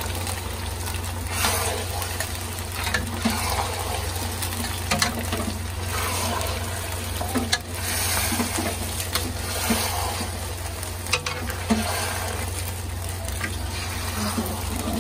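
Metal spatula stirring and scraping makhaddi halwa in a black iron karahi, with sharp clicks where it strikes the pan, over the steady sizzle of the mixture cooking on a gas burner. A steady low hum runs underneath.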